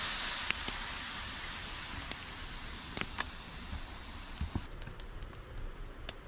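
Fish and mushrooms sizzling over a campfire, a steady hiss that slowly fades, with scattered sharp crackles and pops from the fire.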